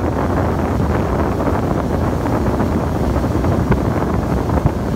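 Wind buffeting the microphone on a moving boat, over the steady running of the boat's engine.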